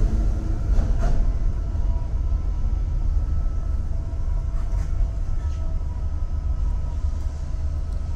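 Steady low hum of a stopped DART electric multiple unit's onboard equipment, heard from inside the carriage, with a faint steady whine and a few light clicks.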